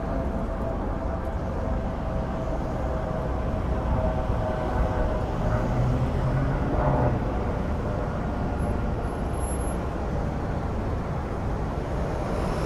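City street traffic: vehicles running and passing, with a low rumble swelling for a couple of seconds mid-way.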